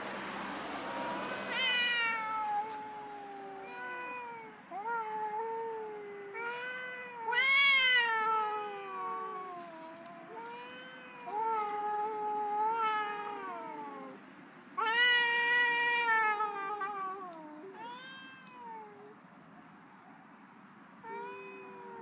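Two cats, a tabby and a black-and-white, yowling at each other in a territorial standoff: a string of long, wavering calls that rise and fall in pitch, some overlapping, growing quieter near the end.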